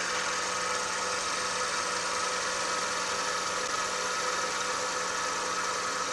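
Wood lathe running steadily, its motor giving an even hum with a few steady whining tones over a hiss.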